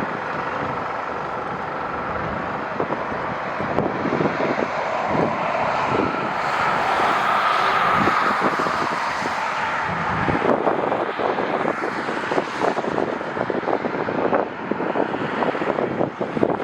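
Jet airliner's engines rushing past, swelling to a peak about eight seconds in and then fading. Gusty wind buffets the microphone in uneven thumps, heaviest in the second half.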